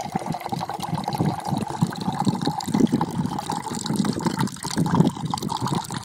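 A thin stream of water poured from a height into a metal bowl, splashing unevenly and continuously as the bowl fills.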